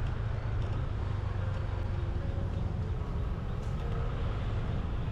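Steady low rumble of a vehicle driving through city traffic, with road noise and no distinct events.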